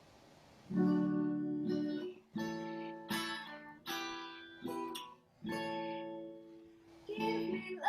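Guitar strumming chords, starting about a second in, each chord left to ring and fade before the next: the introduction to a song.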